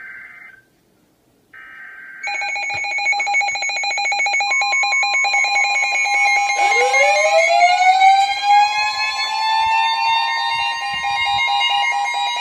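Emergency Alert System alert: a short buzzy burst of digital header data, then about two seconds in a loud alert tone that pulses rapidly, with a steady tone joining it. About seven seconds in, a siren winds up in pitch and holds high over the tone.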